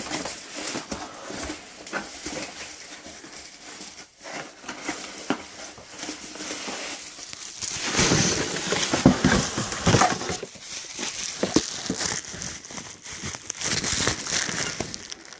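Packaging crinkling and rustling as it is unwrapped by hand, with a run of small crackles and tearing sounds. It grows louder about eight seconds in for a few seconds.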